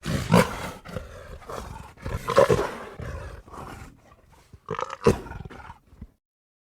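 Smilodon (sabre-toothed cat) sound effect: a series of loud roars and growls, with one roar right at the start, another about two seconds in and a shorter one about five seconds in. It stops abruptly about six seconds in.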